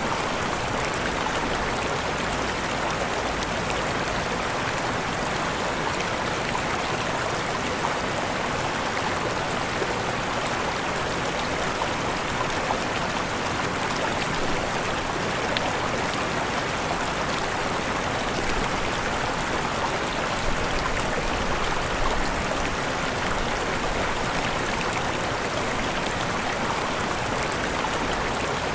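Waterfall: a steady rush of falling water with no change in level.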